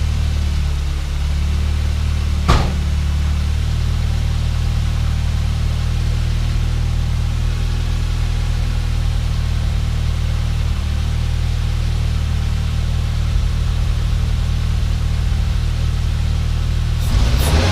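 Turbocharged Nissan GA16DE 1.6-litre four-cylinder idling steadily on its first start since the turbo install, running with the intercooler coupler off. A sharp click about two and a half seconds in, and a brief rev near the end.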